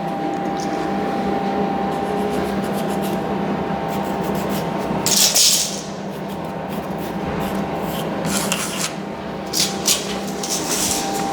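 Scraping and rubbing of hand work on a concrete floor while measuring and pencil-marking, with a loud hissy scrape about five seconds in and a few short clicks near the end. A faint steady hum runs underneath.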